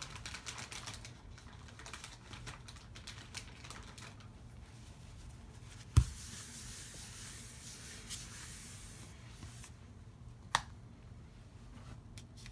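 Card stock and craft tools being handled on a table: light rustling and small clicks, a sharp knock about halfway through, a few seconds of soft hiss, and another sharp click near the end.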